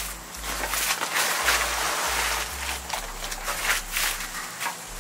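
Rustling and light knocks of a 2013 Ford Fusion's plastic front bumper cover being handled and slid back into place on the car.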